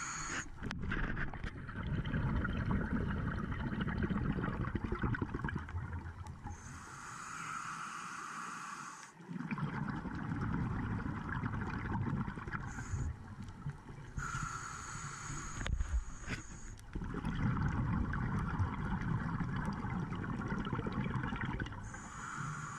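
Scuba diver breathing through a regulator, heard underwater through a GoPro dive housing: a hiss of inhalation lasting about two seconds, then a longer bubbling exhalation of about four to five seconds, the cycle repeating about three times.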